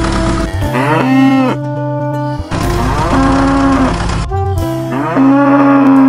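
A cow mooing three times, each call about a second long, rising in pitch and then holding.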